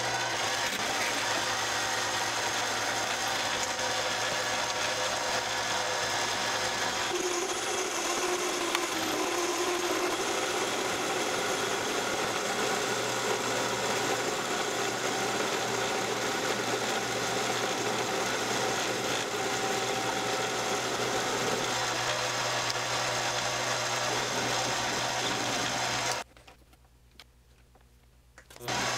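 Mini metal lathe running steadily, its motor and gear drive turning a lag bolt in a four-jaw chuck while it is drilled and then parted off. The lathe stops about 26 seconds in, then runs again in a brief burst just before the end.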